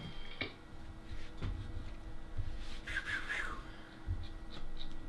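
Quiet room tone with a steady low hum, a brief soft hiss about three seconds in, and a few faint clicks near the end.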